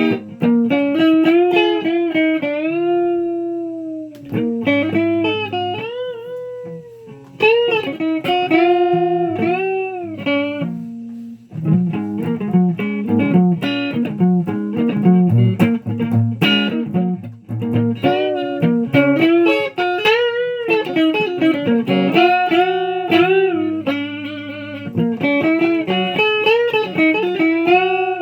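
Electric guitar playing lead lines, with frequent string bends and vibrato on held notes.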